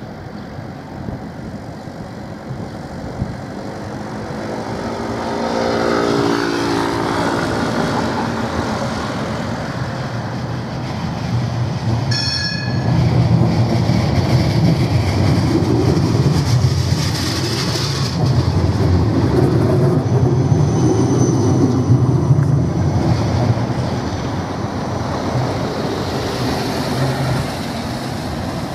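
Siemens Combino Plus low-floor tram approaching and passing close by, its wheels and traction motors rumbling, loudest in the middle as it goes past. A short high-pitched ringing sounds about twelve seconds in.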